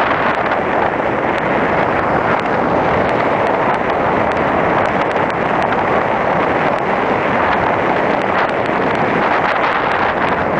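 Steady wind noise rushing over the microphone of a camera riding on a moving bicycle, with faint scattered ticks.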